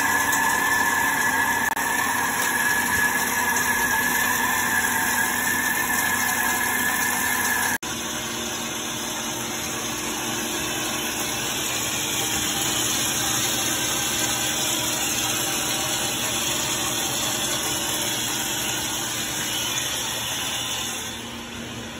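Weiler E120 lathe turning a large 4140 steel workpiece: steady machining noise of the spindle, the cutting tool on the steel and the coolant, with a strong steady high-pitched whine over it. About eight seconds in the sound drops abruptly to a quieter, steady running noise with a low hum, easing off again near the end.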